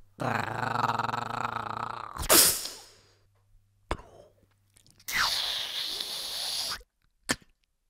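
Vocal sound effects made by beatboxers. A long drawn-out intake builds to a loud sneeze about two and a half seconds in. After a click comes a steady hiss of about a second and a half, the spray of foam from an aerosol can, ending with a short click.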